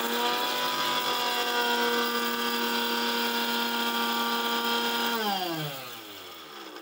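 Electric mixer grinder dry-grinding whole spices and dried red chillies in its steel jar: the motor runs at a steady high pitch, then is switched off about five seconds in and winds down with a falling pitch.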